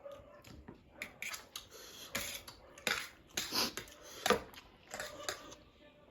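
Close-miked eating of spicy instant noodles: a string of irregular, sharp, wet mouth sounds as the noodles are slurped and chewed.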